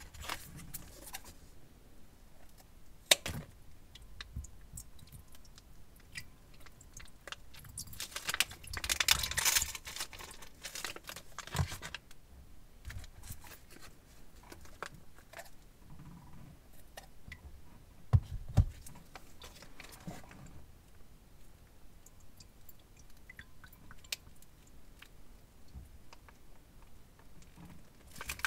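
Plastic piping bags of slime glue crinkling as they are handled, cut and squeezed into a glass bowl, with a few sharp clicks and knocks and a longer burst of crinkling about nine seconds in.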